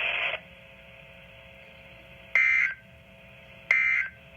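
NOAA Weather Radio EAS end-of-message data bursts, the code that closes the weekly test alert: two short, harsh electronic warbles about a second and a half apart, beginning about two seconds in. Just after the start, a loud hiss from the broadcast cuts off.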